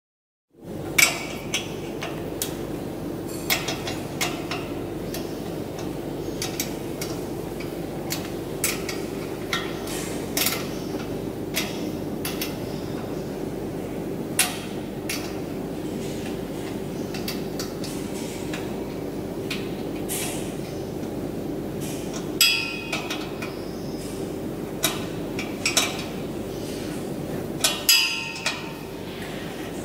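Irregular sharp metal clinks and knocks from tools and fittings as an exhaust muffler is fitted inside a steel generator enclosure, over a steady hum.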